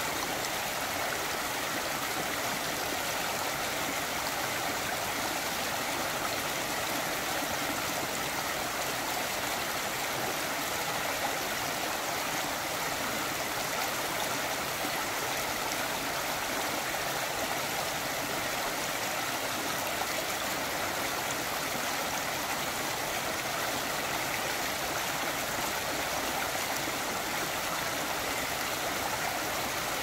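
Shallow rocky stream flowing over cobbles and small drops between stones, a steady, even rush of water.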